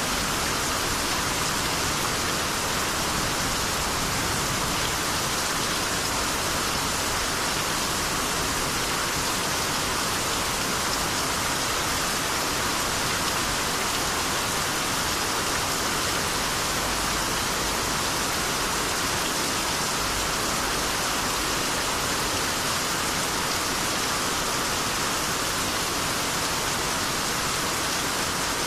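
Steady, even rainfall during the rainy season: a continuous hiss of rain with no breaks or single loud strikes.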